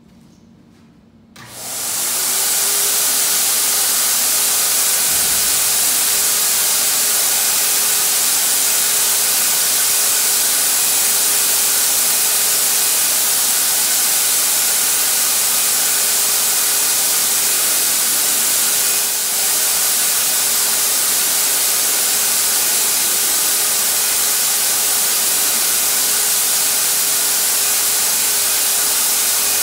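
Chicago Electric HVLP turbine paint sprayer starting up about a second and a half in, its motor whine rising briefly and then holding steady under a loud hiss of air through the spray gun as paint is sprayed. The sound dips for a moment once, about two-thirds of the way through.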